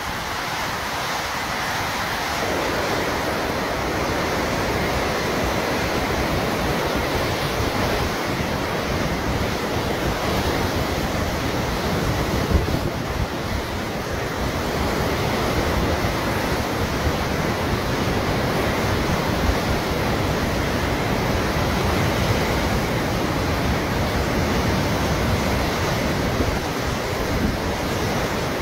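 Sutlej River in flood: a loud, steady rush of fast-flowing water, with wind buffeting the microphone. The sound grows fuller at the low end about two seconds in.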